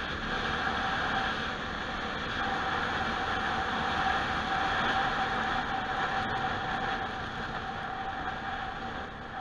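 Motorcycle riding along at steady road speed: wind rushing over the handlebar-mounted camera's microphone, with a steady hum underneath. It quietens a little near the end.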